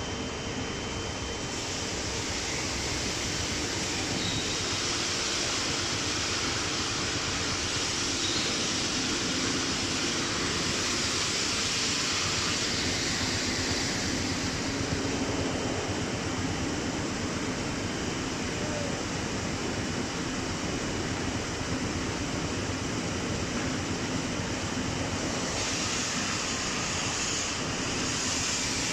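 Fiber cement board production line machinery running: a steady, even din of conveyors and plant with a faint low hum.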